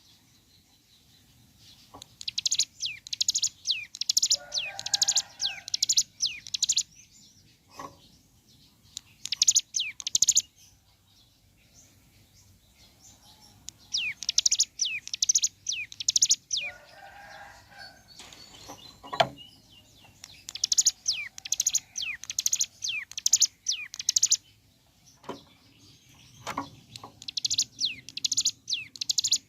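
Ciblek gunung, a mountain prinia, singing in bursts of rapid, high, repeated notes: the fast 'bren' trill. About five bursts come a few seconds apart, with a few short knocks in the pauses.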